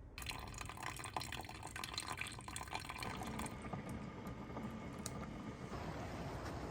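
Water running and dripping, with a dense patter of small drips and splashes for the first three seconds or so, then a steady rushing hiss.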